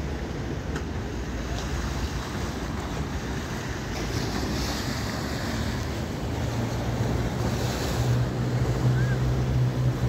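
Sea waves washing and splashing against a breakwater of concrete blocks, with surges of splash about four seconds in and again near the end. Wind buffets the microphone throughout, and the low wind rumble grows stronger in the second half.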